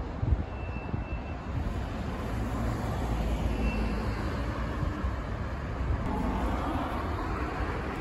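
City street ambience: a steady rumble of road traffic, swelling slightly in the middle.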